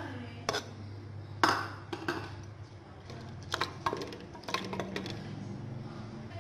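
Sliced onions tipped from a plate into an aluminium pot of oil and stirred with a wooden spoon: a scatter of sharp knocks and clinks as the plate and spoon strike the pot. A steady low hum runs underneath.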